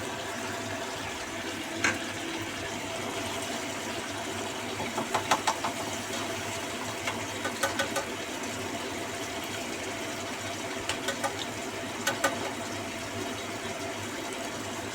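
Sauce cooking in a pan on the stove, under a steady mechanical hum, with short clusters of sharp clicks and taps several times.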